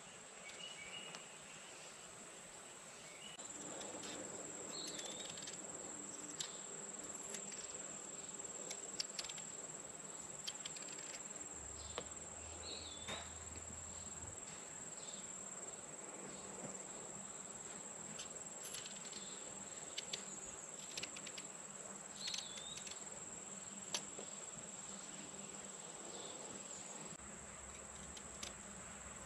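A small knife peeling raw potatoes in a spiral, giving soft scrapes and scattered small clicks, over a steady high-pitched insect buzz. A few short chirps come through now and then.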